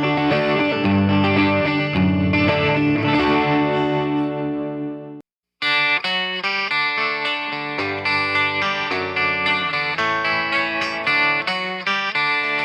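Electric 12-string guitar strumming chords with a bright, ringing jangle. The playing cuts off suddenly a little over five seconds in and, after a brief gap of silence, another passage starts.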